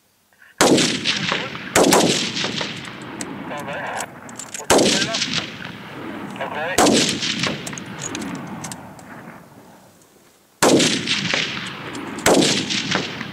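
Hunting rifles fired by several shooters, six shots spaced unevenly over about twelve seconds. Each sharp crack is followed by a long fading echo.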